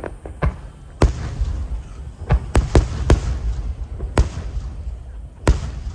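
Aerial fireworks shells bursting: a run of about eight sharp bangs, several close together in the middle, over a steady low rumble.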